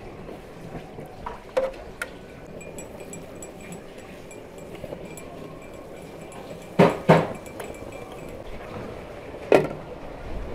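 Metal pots and lids knocking and clinking, each knock ringing briefly. There are a couple of light clinks in the first two seconds, two loud knocks in quick succession near the middle, and one more near the end.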